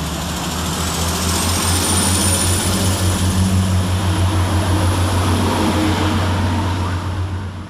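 Class 175 diesel multiple unit working hard under power as it pulls out of the station: a steady low engine drone with a thin high whistle that rises in pitch about a second in, fading away near the end.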